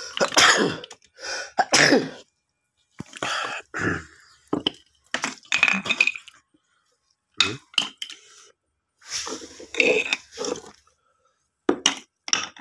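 Wet sea urchins and sea-snail shells being handled in a tub of water and on a hard floor: irregular clinks, scrapes and wet squishes in short bursts with brief silences between.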